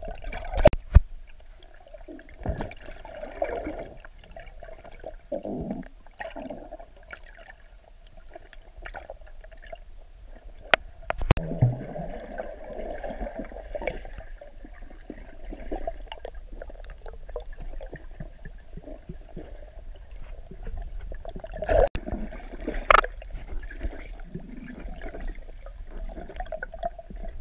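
Muffled underwater sound picked up by a camera submerged in seawater: a steady dull water wash with a few sharp knocks and clicks, a pair about a second in, more around the middle and near the end.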